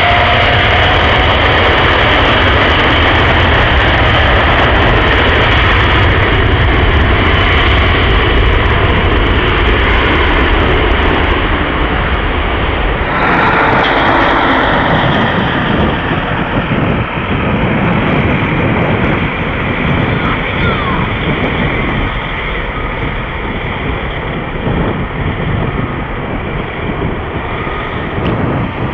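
Rolls-Royce Trent 1000 turbofans of a Boeing 787-8 running at takeoff thrust: a loud, steady jet roar through the takeoff roll and lift-off. It grows somewhat fainter in the last seconds as the aircraft climbs away.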